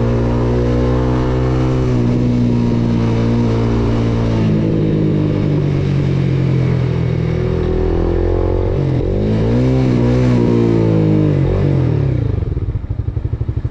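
Motorcycle engine running as the bike rides and slows: its pitch steps down, then rises and falls quickly a few times, and near the end it settles to a slow, pulsing idle as the bike comes to a stop.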